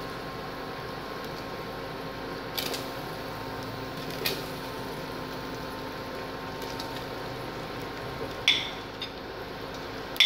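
Steady hum and hiss from an induction cooktop with pork frying in a stainless steel pot. A few sharp clinks of a metal spoon on a plate and potato cubes dropping into the pot, the loudest a couple of times near the end.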